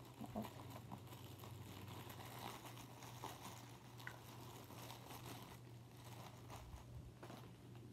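Faint crinkling and rustling of a plastic wrapper being handled, with scattered soft clicks over a low steady hum.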